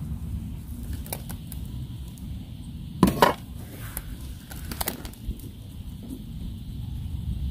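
Steady low rumble, with a few faint clicks, a loud short knock about three seconds in, and two weaker clicks a couple of seconds later.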